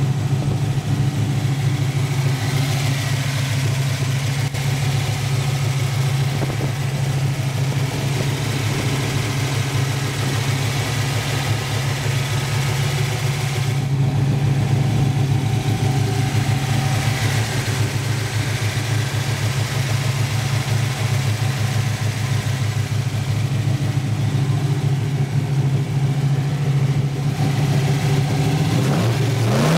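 Chevrolet 283 small-block V8, fitted with aftermarket headers, idling steadily.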